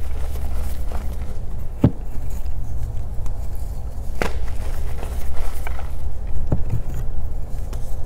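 Reformed gym chalk being crushed by hand: a steady low crumbling with about four sharp cracks as pieces snap.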